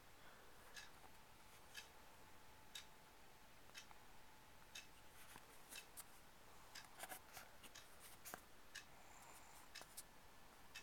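Near silence: room tone with faint, sharp ticks about once a second.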